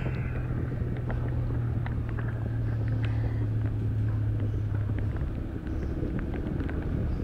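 Yamaha Vixion's 150 cc single-cylinder engine running at high revs while engine-braking in first gear on a steep descent, a steady drone. About five seconds in it eases and drops in pitch.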